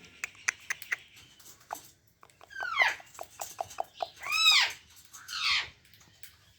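Pet parrot calling: a falling squawk about two and a half seconds in, a rising-and-falling squawk around four and a half seconds, and a harsher call soon after. Quick sharp clicks come between the calls.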